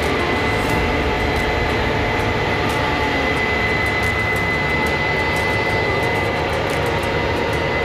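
Case IH Axial-Flow combine running steadily while harvesting wheat: a constant machine noise with a thin, steady high whine.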